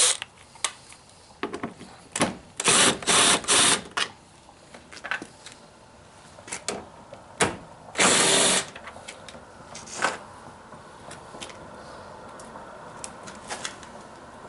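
Power drill spinning out the 10 mm screws of a car's front bumper cover in short bursts: three quick runs together about three seconds in and a longer one about eight seconds in, with clicks and knocks of the socket and fasteners between.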